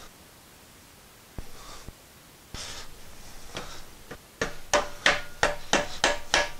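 Rubber mallet tapping a knurled hinge pin into the stainless steel door of a Napoleon Prestige 500 grill cabinet, driving it in until the knurling is seated. There are a few scattered light knocks, then about two-thirds of the way in a quick run of taps, about four a second, each with a slight metallic ring.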